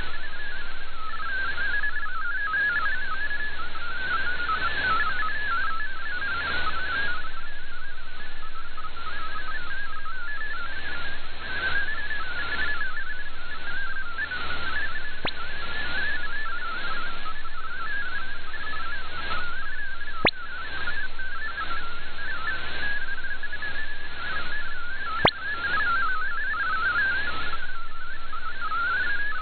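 MFSK32 digital data signal from a shortwave broadcast: a warbling cluster of rapidly hopping tones around the middle of the range, over static hiss that swells and fades. Three sharp clicks come about five seconds apart in the latter half.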